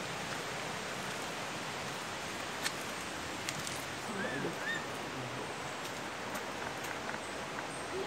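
Steady hiss of rain-forest background noise, with a few faint clicks and two short high chirps about halfway through.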